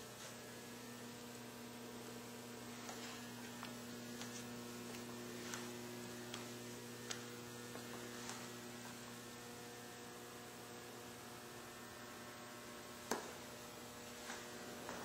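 Steady low electrical hum, with a few faint clicks and one sharper tap about thirteen seconds in.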